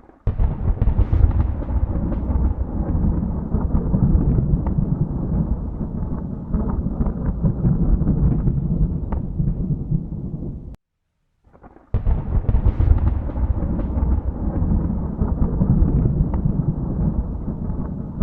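Thunder rumbling and rolling, deep and continuous. It cuts off suddenly about eleven seconds in, and after about a second of silence a new roll starts abruptly.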